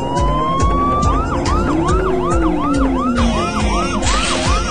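Police siren sound effect: a wail rises for about a second, then switches to quick up-and-down sweeps, about three a second, and cuts off abruptly at the end.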